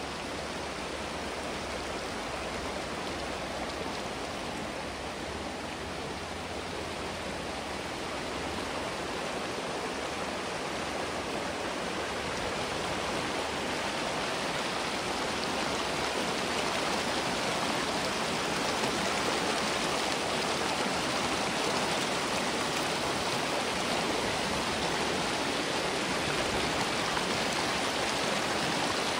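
Creek water flowing in a steady rush, growing a little louder over the first half.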